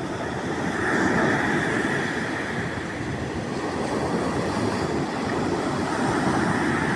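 Sea surf washing onto the shore: a steady rush of waves that swells about a second in and again near the end.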